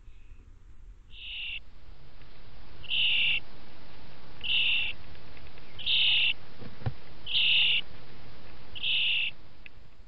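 Young starlings in the nest box giving short raspy, hissing calls, six of them about a second and a half apart.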